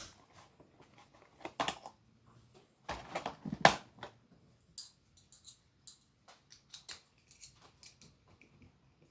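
Small clicks and rattles of hands handling a plastic mini screwdriver set, with a louder clatter about three and a half seconds in.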